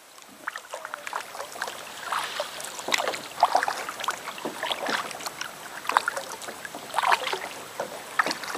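Paddle strokes in river water: repeated splashes and drips, roughly one a second.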